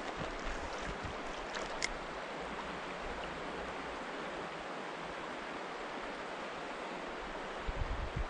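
Shallow river current running over rocks: a steady rush of flowing water, with a few low bumps near the end.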